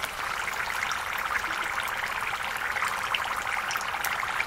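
Keema samosas deep-frying in hot oil in a steel pan: a steady crackling sizzle of bubbling oil, full of tiny pops.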